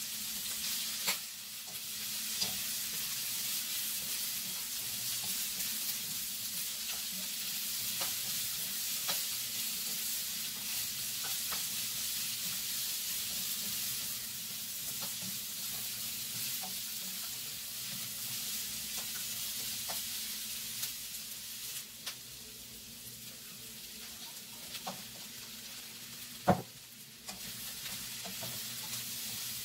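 Diced meat and onion sizzling in a nonstick wok while a spatula stirs and scrapes them, with small clicks of the spatula on the pan. The sizzle eases for a few seconds near the end, broken by one sharp knock, then picks up again.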